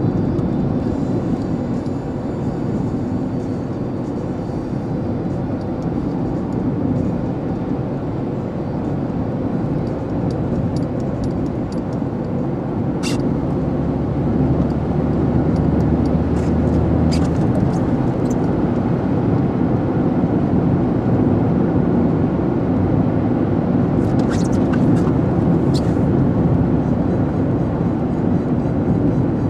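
Steady car cabin noise while driving: engine and tyre noise from the road. A few light clicks come around the middle and again near the end.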